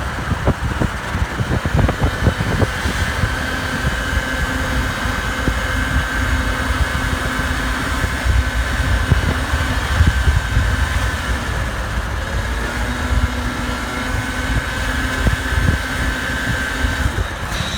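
A 50cc moped scooter running under way, with heavy wind buffeting on the microphone. A steady high whine runs under it and stops shortly before the end.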